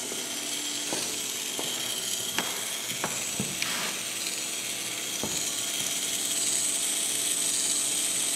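Small electric motor of a K'nex camera dolly running with a steady hum, its plastic gears and drive clicking now and then as it inches the camera along its track. The clicks come at uneven intervals over the first five seconds, and the hum grows slightly louder near the end.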